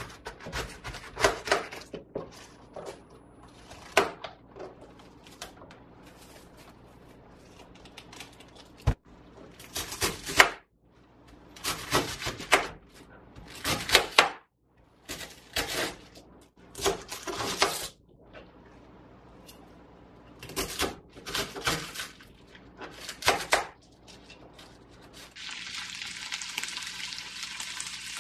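Fresh cabbage being torn and cut with a knife on a cutting board: a run of separate crisp, crunchy strokes. About three seconds before the end, cabbage starts sizzling steadily as it stir-fries in oil in a pan over low heat.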